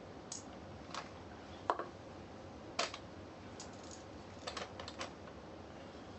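Light clicks and taps of hands handling a small rubber tyre and a weighing scale: a few single sharp knocks, then a quick cluster of taps in the second half.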